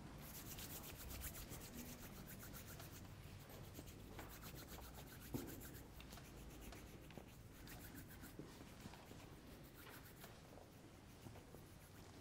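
Near silence in a quiet church, with faint, rapid scratchy rubbing and a single soft knock about five seconds in.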